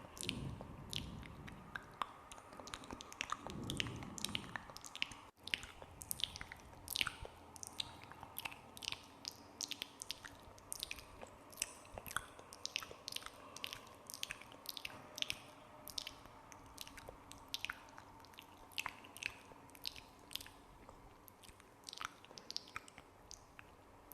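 Close-miked ASMR wet mouth sounds ('spit painting'): a dense, irregular run of sticky clicks and smacks, several a second, with two longer, lower smacks in the first few seconds.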